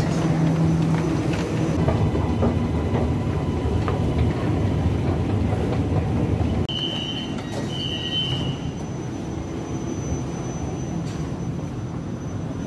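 Underground metro train running: a steady low rumble, with two short high-pitched tones about seven and eight seconds in.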